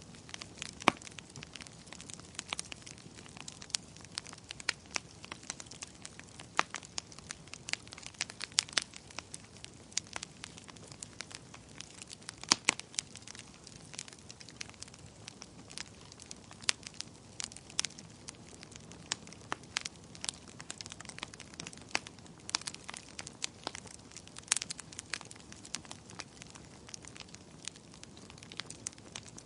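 Wood fire crackling: frequent sharp, irregular pops and snaps over a faint steady hiss.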